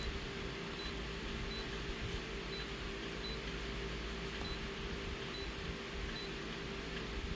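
Steady machine hum and hiss, with a faint short high beep repeating a little more than once a second.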